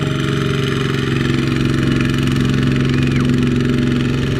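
Two-wheel walking tractor's single-cylinder diesel engine running steadily under load as it pulls a trailer loaded with rice sacks through a muddy paddy field.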